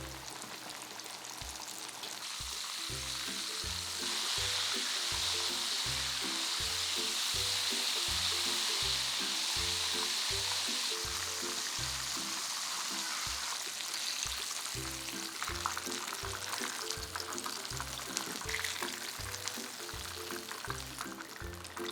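Pieces of breaded chicken frying in hot oil with a steady sizzle. The sizzle grows louder about four seconds in, then eases into scattered crackling pops over the last several seconds. Background music with a steady beat plays underneath.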